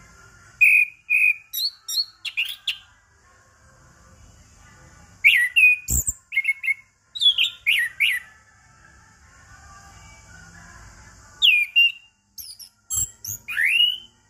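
Orange-headed thrush singing in three bursts of song made of varied clear whistles, chirps and quick pitch glides. The last burst ends with a rising whistle. A faint steady hiss runs between the phrases.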